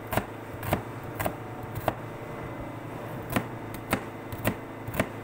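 Kitchen knife slicing a red onion, the blade knocking on the surface beneath in sharp chops about every half second, eight strokes with a short pause partway through.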